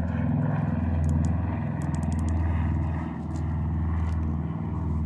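A steady low engine drone, swelling and easing slightly every second or so, with a few faint ticks over the first three seconds.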